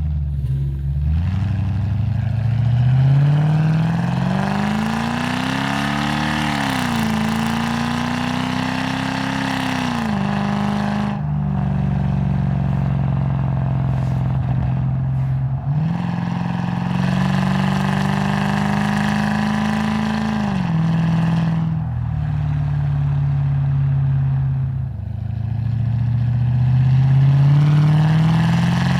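Lexus GS430's 4.3-litre V8 through a custom exhaust, revved up and held at raised revs, dropped back to idle, then revved again several times. In the last few seconds the revs rise steadily.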